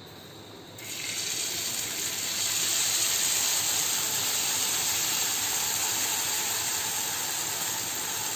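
Malpua batter sizzling in hot oil on a flat griddle (tawa): a steady hiss that starts suddenly about a second in as the batter is ladled onto the pan, then keeps on.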